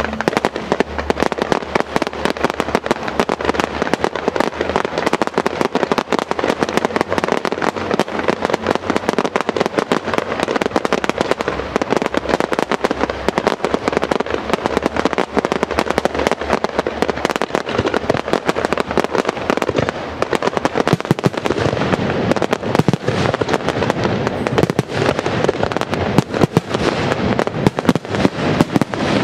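Fireworks display firing a dense, unbroken barrage of rapid bangs and crackles. Heavier, deeper booms join about two-thirds of the way through.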